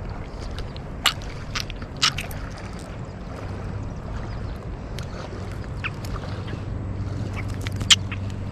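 River water rushing and sloshing around a kayak in rapids, with a few sharp knocks, the loudest near the end.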